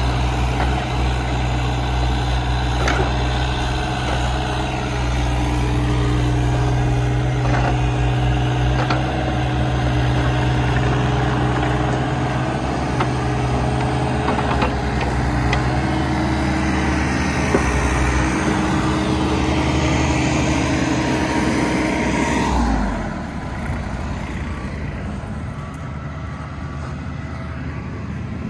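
New Holland E30SR mini excavator digging, its diesel engine running steadily under load with the hydraulics working, and a few sharp knocks from the bucket and arm. Near the end the engine revs fall away and the sound drops.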